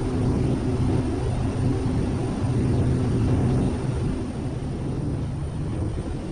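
Quest Kodiak 100's PT6A turboprop engine and propeller heard inside the cockpit in flight: a steady low drone with a humming tone, easing off a little about four seconds in.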